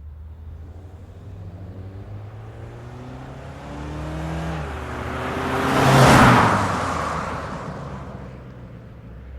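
Mazda CX-5 small SUV driving past. Its engine note climbs as it approaches, drops about four and a half seconds in, and then it passes loudest about six seconds in with a rush of tyre and wind noise before fading away.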